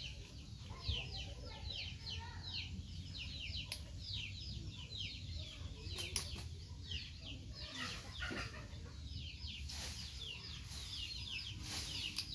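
Chicks peeping: a steady stream of short, falling, high-pitched peeps, several a second, over a low rumble, with a couple of sharp clicks.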